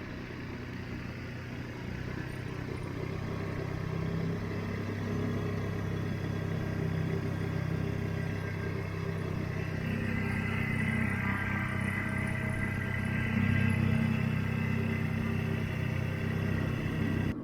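Small 2.5 hp Mercury outboard motor running steadily, pushing the dinghy along; its note swells a little louder about two-thirds of the way through.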